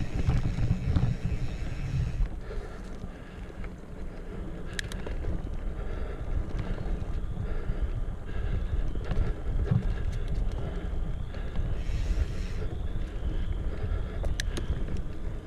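Mountain bike riding a dirt trail, heard from a chest-mounted action camera: wind buffeting the microphone over tyre and trail rumble, with a couple of sharp clicks from the bike.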